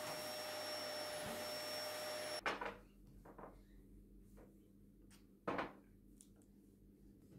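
A canister vacuum cleaner running steadily with a constant whine, cutting off abruptly about two and a half seconds in. After that, quiet handling sounds of items on a wooden coffee table as it is wiped with a cloth: scattered light knocks and one louder thump about halfway through.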